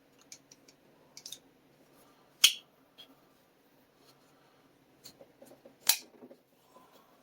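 Sig Sauer X5 Legion button-lock folding knife being worked in the hand: light metallic clicks, with two sharp snaps of the blade, about two and a half seconds in and again near six seconds.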